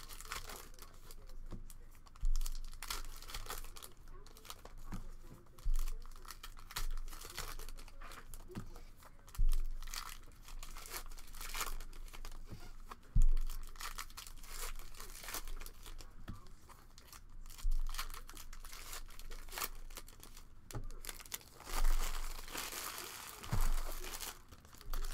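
Foil trading-card pack wrappers crinkling and tearing as packs are ripped open by hand. Dull thumps come every three to four seconds and are the loudest sounds.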